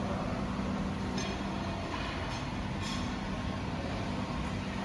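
Steady drone of running factory machinery with a constant low hum, and a few faint ticks between about one and three seconds in.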